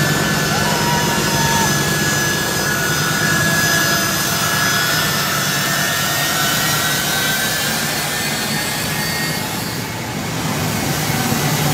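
Boeing C-17 Globemaster III's four turbofan jet engines running, a loud steady roar with a high whine on top.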